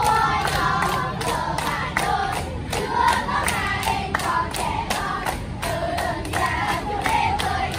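A group of young schoolgirls singing together while clapping their hands in a steady rhythm, about three claps a second.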